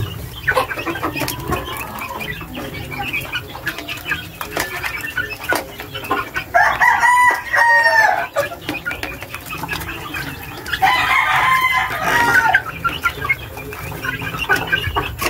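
A flock of young chickens clucking and calling while they feed, with a short crow from a young rooster about halfway through and another a few seconds later. Sharp ticks of beaks pecking at the feeder tray run under the calls.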